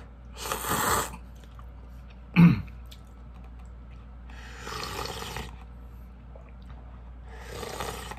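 Mouth sounds of a man eating cup ramen: three short noisy sounds of under a second each, and one short loud grunt about two and a half seconds in.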